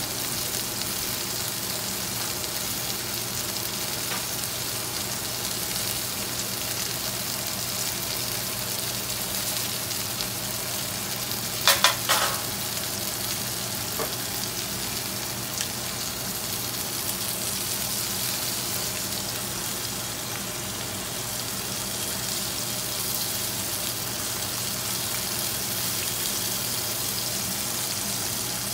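Salmon fillets searing skin-side up in hot olive oil in a skillet, with a steady sizzle. A brief clatter of a few sharp knocks about twelve seconds in.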